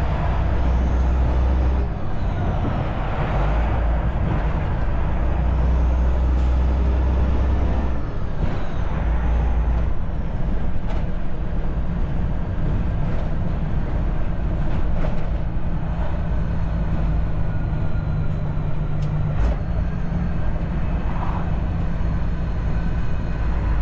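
Semi-truck diesel engine running under way, heard from inside the cab: a loud, steady low drone whose pitch and level change a few times.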